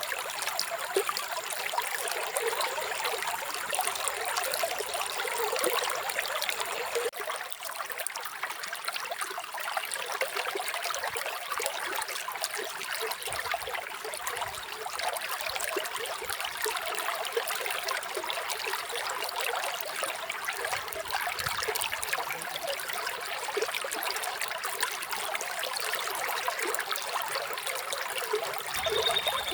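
Small stream of running water trickling and splashing steadily over stones.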